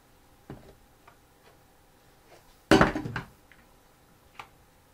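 A few light knocks and clicks from a flat iron being handled and clamped in hair, with one louder clatter about halfway through.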